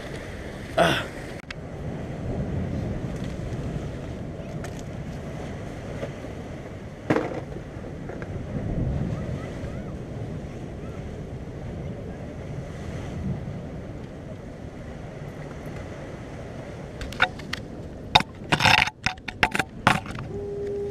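Ocean surf washing against a jetty, with wind on the microphone. There is a single knock about seven seconds in and a run of sharp clicks and knocks near the end.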